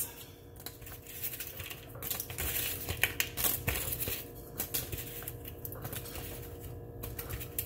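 A plastic sandwich bag crinkling as cauliflower crackers are handled and dropped into it: a string of irregular light crackles and rustles.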